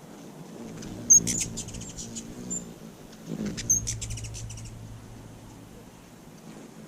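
Hummingbirds at a feeder: two bursts of rapid, high chittering calls, each opening with a sharp chip, about a second in and again near four seconds, with a low buzz of wings as they fly close.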